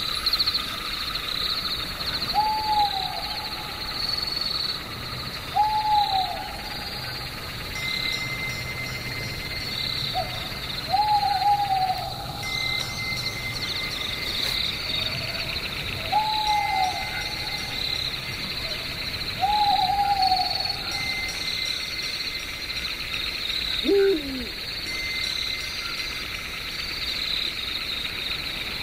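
An owl hooting, one rising-and-falling call every few seconds, over a steady high chirring of crickets or other night insects. Near the end there is one lower call that falls in pitch.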